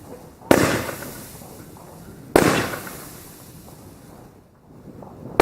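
Fireworks going off: two loud bangs about two seconds apart, each trailing off into a fading crackle and rumble, then a third bang right at the end.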